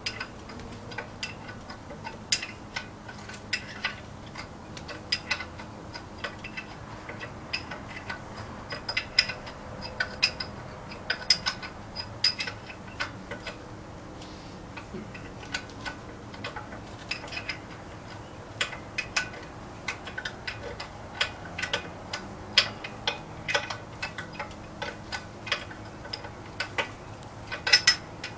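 Hand ratchet wrench clicking in short, irregular runs as nuts on the engine's manifold are backed off, with a quieter pause near the middle.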